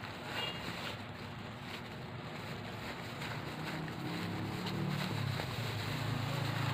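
Thin plastic cling wrap rustling and crinkling as it is peeled off a wrapped rice cake by hand, over a steady background noise. A low hum comes in about four seconds in.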